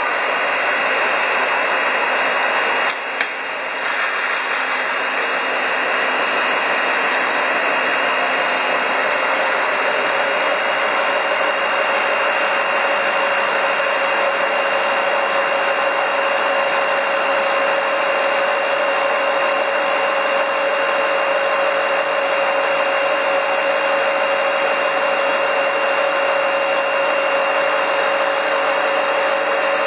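Stainless-steel soya-protein food extruder running: a steady mechanical whir with a constant hum tone. A brief click and a momentary drop in level come about three seconds in.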